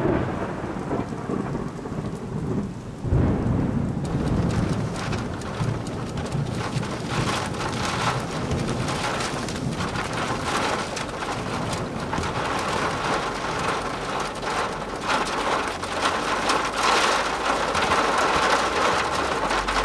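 Thunderstorm: heavy rain pouring down with a loud low rumble of thunder about three seconds in, then steady downpour to the end.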